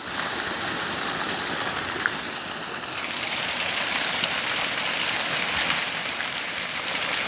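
Rushing water, a steady even wash of noise from abundant flowing water.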